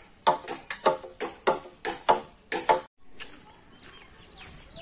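A run of sharp, ringing ticks or clicks, about three to four a second and slightly irregular, that stops abruptly about three seconds in. Faint outdoor background noise follows.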